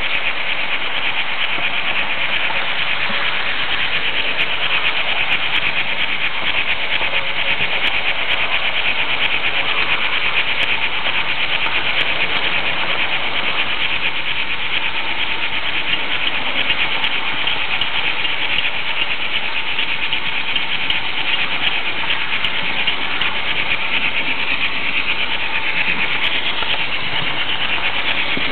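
H0 Märklin model train running along the track, heard close up from the camera riding on the flat car: a steady rattling buzz of wheels and pickup on the rails with the locomotive's motor.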